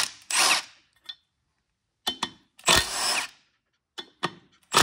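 Milwaukee Fuel cordless impact driver running in several short trigger bursts, backing out the 10 mm bolts that hold the cone on a jet-ski jet pump.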